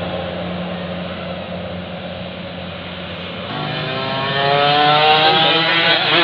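Steady traffic rumble, then about three and a half seconds in a bus's diesel engine revs up as it accelerates along the road, its pitch climbing steadily and getting louder.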